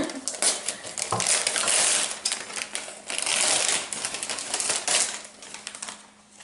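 Gift wrapping paper being torn and crumpled off a small box: a run of crackling rips that grows quieter near the end.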